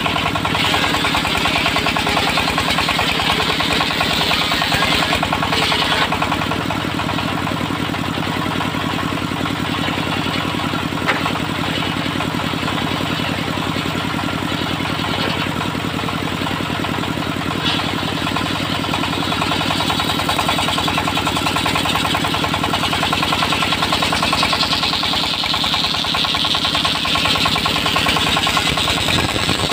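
Engine of a log-sawing machine running steadily with a dense, even beat while cutting timber; the higher-pitched cutting noise swells for a few seconds near the end.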